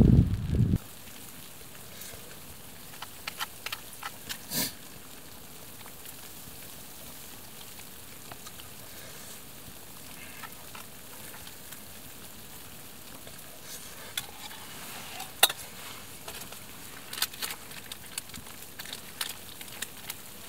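Wind buffeting the microphone cuts off just under a second in, leaving a faint steady hiss with scattered small clicks and taps.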